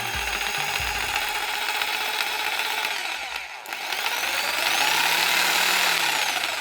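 Bosch PST 800 PEL jigsaw motor running free with the blade stroking in the air, not cutting. It dips briefly about three and a half seconds in, then speeds up and slows down again near the end.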